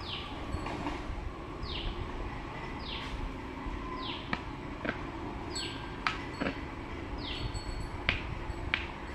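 A bird repeating a short call that falls steeply in pitch, about once every second or two, over a steady background hum. A few sharp clicks fall in the second half.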